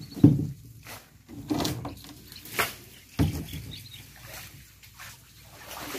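Small fishing boat moving among water hyacinth: irregular splashes and knocks against the hull, with a sharp knock just after the start and another sudden one about three seconds in.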